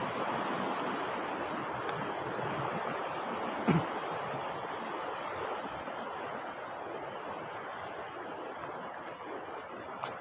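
River water rushing over rocks, a steady noise that slowly grows fainter. One brief louder sound stands out about four seconds in.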